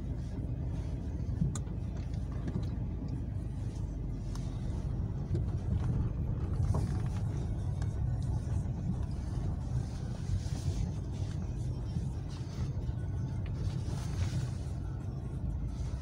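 Dacia Sandero Stepway driving slowly at low revs over a rough dirt track, a steady low rumble of engine and tyres heard inside the cabin.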